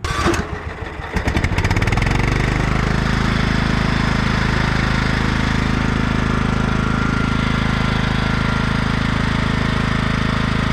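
Kohler lawn tractor engine running with its oil drained and oil filter removed, speeding up about a second and a half in and then running steadily at high speed.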